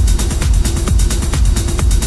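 Dark techno playing: a steady kick drum beat with fast, evenly spaced hi-hats and a short synth note repeating over it.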